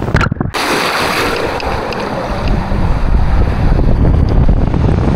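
Heavy wind buffeting the microphone over rushing, splashing water, with a deep rumble throughout; the sound drops out briefly about half a second in.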